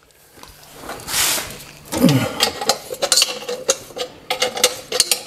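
Hand ratchet wrench clicking in quick runs as a bolt is undone on the temporary cradle holding the engine, letting it settle onto its rubber mounts. A short falling squeak comes about two seconds in, before the clicking starts.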